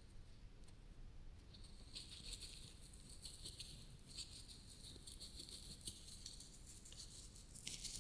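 Faint, crisp crackling and scratching close to the microphone, an ASMR trigger sound. It begins about two seconds in and goes on as a dense run of fine clicks.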